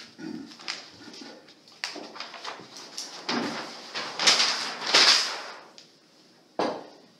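A large flipchart sheet being turned to a blank page, the paper rustling and crackling in a series of short bursts that peak about four to five seconds in, with one sharp knock near the end.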